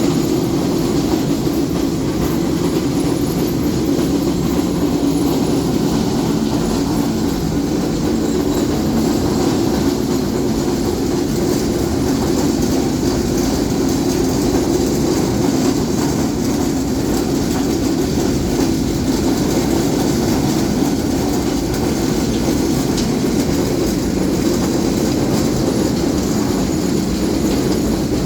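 4R Raymond roller mill grinding dolomite under load: a loud, steady, continuous mechanical rumble and clatter that holds even throughout.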